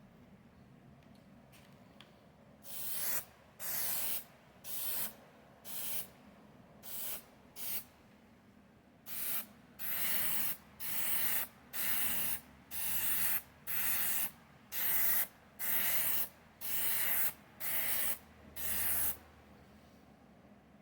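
Aerosol spray paint can sprayed in short bursts, about seventeen hisses of half a second each at roughly one a second, with a short pause partway through, as paint is put on.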